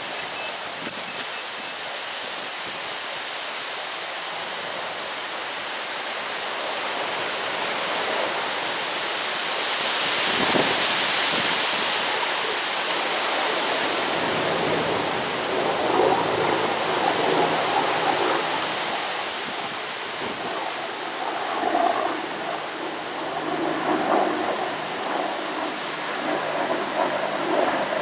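Strong gusty wind blowing on the microphone: a steady rushing hiss that swells in gusts, loudest about a third of the way in and buffeting more unevenly in the second half.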